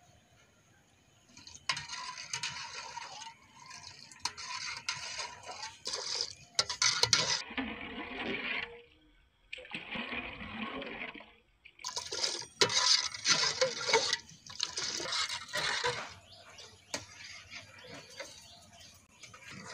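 Fresh milk being ladled and poured in an aluminium cooking pot, splashing and trickling in stretches with a couple of short pauses.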